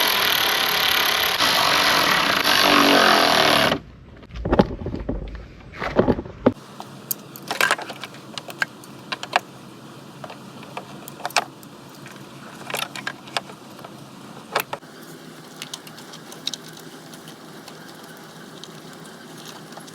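Headlight installation work: about four seconds of loud, steady rushing noise, then scattered sharp clicks and light knocks of hardware and tools being handled as the headlight is fitted into place.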